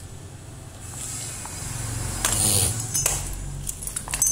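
Handling noise: a short rustle and several light clicks as wire leads and small metal parts are handled on an opened electric kettle base, over a steady low rumble.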